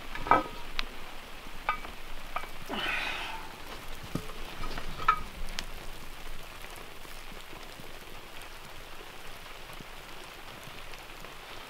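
Faint steady sizzling crackle from a cast iron Dutch oven of cake batter cooking over campfire coals. A few light metal clicks and knocks come in the first half, as the coal-covered lid comes off and the batter is poked.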